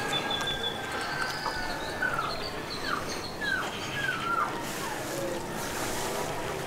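Birds calling in the garden trees: a few short whistled notes that slide downward, about three to four seconds in, with thin high notes before them. Underneath is a steady wash of irrigation water running over the lawn and path.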